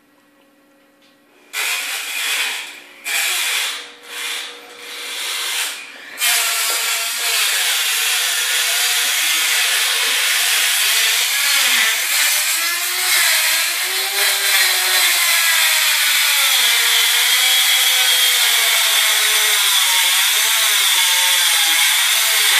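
Power grinder with an abrasive cut-off disc cutting into a steel bike lock. First come a few short bursts as the disc touches the metal, then from about six seconds in a steady grinding with a whine that wavers as the disc bites.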